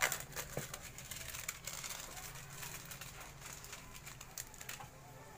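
Bitter gourd sautéing in a covered pan: irregular crackling and sharp pops, which thin out near the end, over a low hum.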